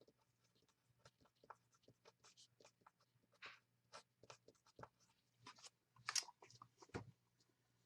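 Faint, irregular scratches and taps of a pen writing, with a soft knock about seven seconds in.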